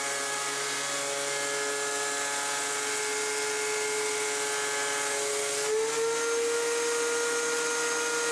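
DeWalt DW735 thickness planer running, a steady motor and cutterhead whine over a hiss. The whine sits slightly lower while a board is planed for a full-surface calibration cut, then rises about six seconds in as the board clears the cutterhead and the machine runs free.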